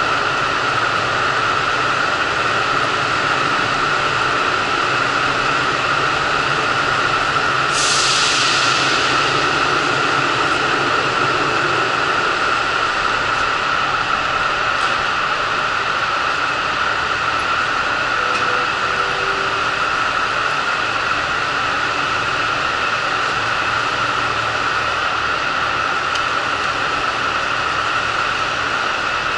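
KiHa 85 diesel railcar standing at the platform with its engines idling, a steady drone. A sudden hiss of released compressed air comes about eight seconds in and fades over a couple of seconds.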